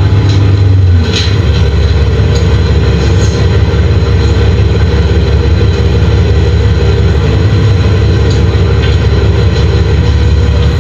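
Nova Bus LFS city bus heard from inside the passenger cabin: a loud, steady low engine drone with a few short rattles. The steady hum changes about a second in.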